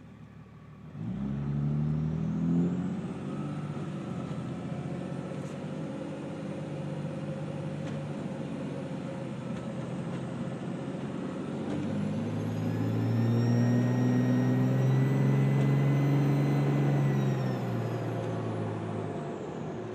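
2004 Dodge Ram 2500's 5.9-litre Cummins straight-six turbodiesel accelerating, its turbocharger whistling loudly because the silencer ring has been removed. The engine picks up about a second in and runs steadily, then pulls harder in the second half as the whistle climbs to a high pitch, which the owner puts at about 20–25 psi of boost, and eases off near the end.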